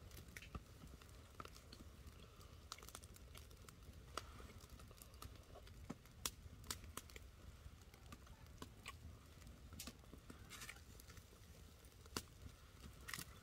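Near silence, broken by faint, scattered sharp clicks and crackles about once a second.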